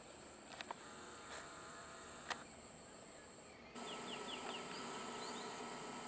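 Insects buzzing in a steady high-pitched drone, with a few faint clicks. Just past halfway the background changes abruptly and a quick run of faint high chirps comes in.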